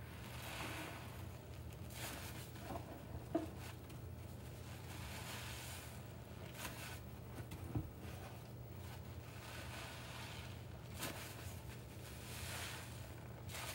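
Soapy cellulose sponges squeezed and wrung in a sink of sudsy water: wet squishing and sloshing, a squeeze every second or two, with a couple of sharp little clicks and a steady low hum underneath.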